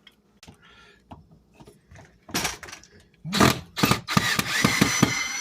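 Power drill backing a long screw out of an old door frame: some clicks and a few short loud bursts, then the motor runs with a steady whine from about four seconds in.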